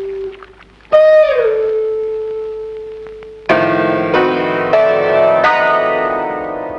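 Film soundtrack music: a loud held wind-instrument note that bends down in pitch and holds. About halfway it gives way to a full sustained chord, with new notes entering every half second or so before fading.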